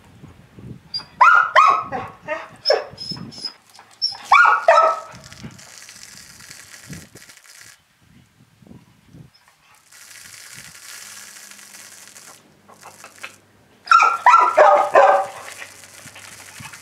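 A dog barking in three runs of quick barks: a long run about a second in, a short one around four seconds, and another near the end.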